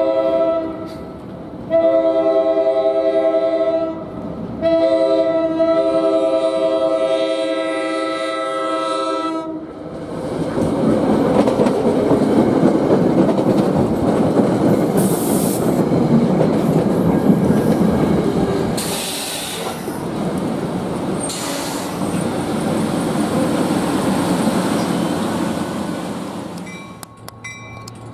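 NJ Transit commuter train sounding its multi-note air horn in long blasts, the last held about five seconds, as it nears the station grade crossing. Its coaches then run past close by, with a loud rumble of wheels and clatter over the rail joints for about fifteen seconds. It fades near the end as a quick run of short ringing tones starts.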